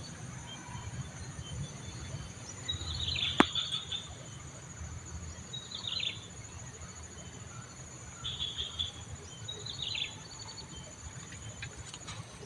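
A bird giving short falling chirps every two seconds or so over a steady high-pitched insect drone, with one sharp click a little over three seconds in.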